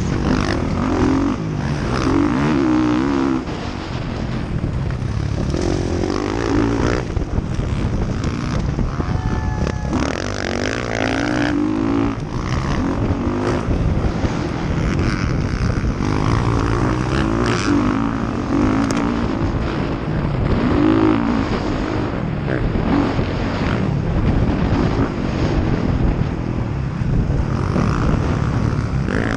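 Dirt bike engine racing on a motocross track, heard close up from the rider's own helmet. It revs up and drops back again and again as the rider goes through the throttle and the gears over jumps and turns.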